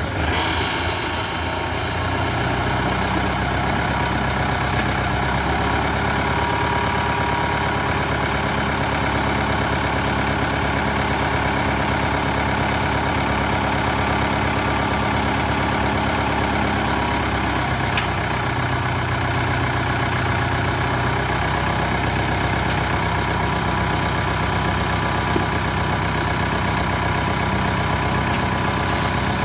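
Diesel engine of heavy earth-moving machinery running steadily, its pitch shifting slightly at times.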